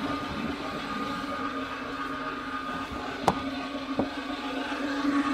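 Lagler Single single-disc floor buffer running steadily with a constant motor hum while its pad buffs freshly applied 2K oil sealer into a hardwood parquet floor. Two sharp knocks come about three and four seconds in.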